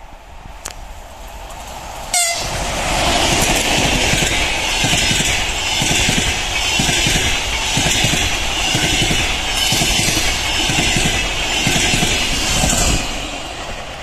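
An ЭП2К electric locomotive and its double-decker passenger coaches passing close at speed. The sound builds, then jumps suddenly to a loud rush as the train comes level about two seconds in. A steady run of rhythmic wheel clatter over the rail joints follows, and it dies away near the end as the last coach passes.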